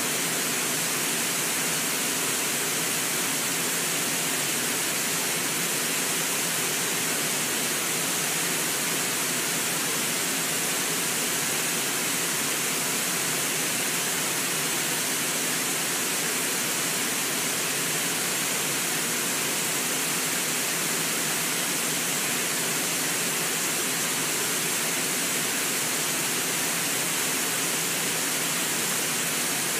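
Water pouring over a low, wide waterfall: a steady, unbroken rush of white water.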